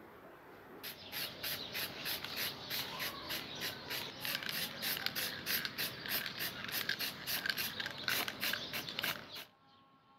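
Aerosol spray paint can spraying in short, rapid hissing bursts, about three or four a second, which stop abruptly near the end.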